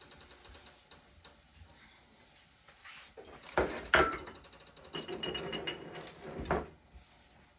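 Kitchen counter handling noises: two sharp clicks or knocks about halfway through, then a few seconds of rattling, ratchet-like scraping that ends in another knock, over a faint steady background.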